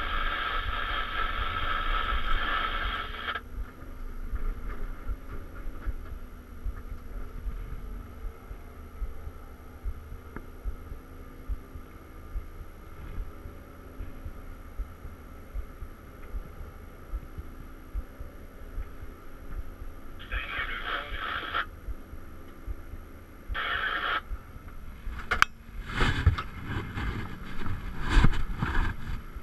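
Cat 323 excavator's diesel engine running under the cab floor with a low throbbing rumble. Higher-pitched hydraulic hiss and whine comes in for about three seconds at the start and briefly twice later as the boom and bucket are worked. Near the end come loud knocks and rattles of handling.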